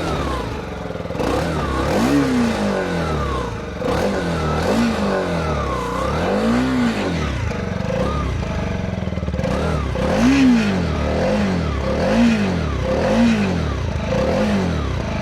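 TVS RTX 300's single-cylinder engine on its stock exhaust, idling between a series of short throttle blips, each revving up and dropping straight back, the later ones about one a second. The exhaust note is quite bassy.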